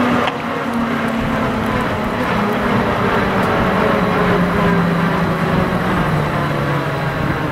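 Eurocopter EC155 twin-turboshaft helicopter running on the ground with its rotor turning after landing. A steady whine whose tones slowly fall in pitch as the engines wind down.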